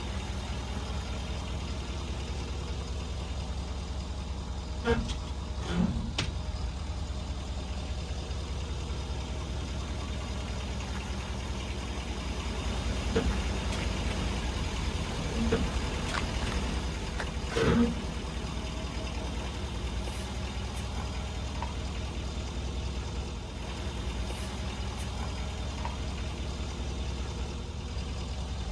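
Ford F-350 Super Duty pickup's engine running at a low steady hum, with a handful of short sharp cracks and crunches as its tyre rolls over and crushes objects: two about five and six seconds in, more in the middle, the loudest about two-thirds through.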